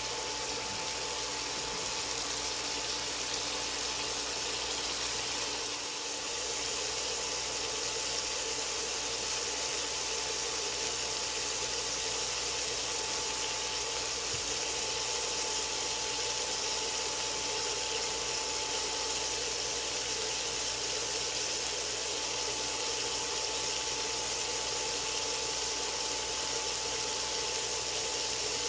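Shrimp with garlic, celery and onion sizzling steadily in olive oil in a pan on an induction cooktop, with a thin steady tone running underneath.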